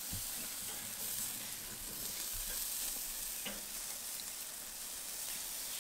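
Bratwursts and burger patties sizzling steadily on the grate of a charcoal kettle grill, with a few faint clicks.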